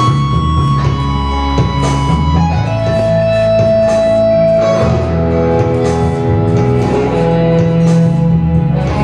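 Rock music led by guitar, with held notes over a steady bass line.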